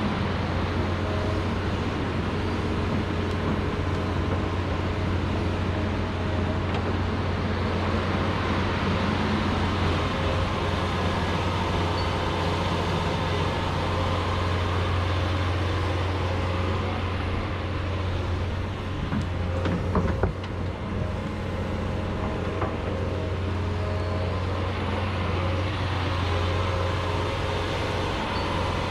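John Deere 210G excavator's diesel engine running steadily under working load, with a few sharp knocks about twenty seconds in.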